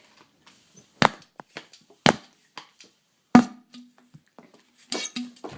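Toy ball-shooting pistol clacking sharply four times, about a second apart, with lighter plastic ticks in between.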